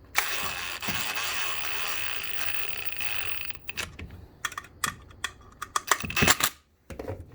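A rubbing hiss for about three seconds, then a run of small sharp clicks and knocks as the plastic display panel and its rubber grommets are handled.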